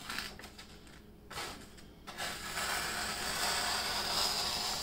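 A sheet of paper being sliced by a freshly sharpened chef's knife. A few short crinkles are followed, from about two seconds in, by a long steady hiss of the blade running through the paper. The blade cuts cleanly, which shows it is sharp.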